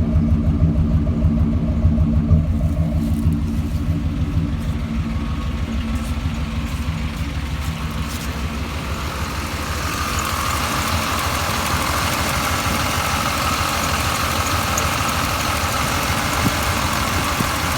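1989 Chevrolet Silverado pickup's engine idling. About ten seconds in, a steady hiss comes in over the engine, strongest in a band near the middle of the range. The owner calls the truck's noise strange and does not know its cause.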